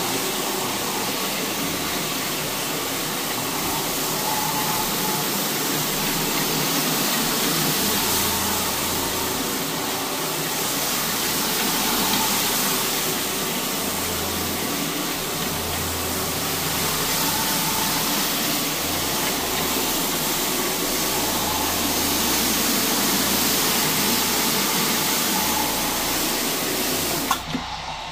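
A 175 rpm rotary floor machine runs steadily, its motor humming while the spinning pad scrubs the carpet. Near the end there is a sharp click, and the sound turns duller after it.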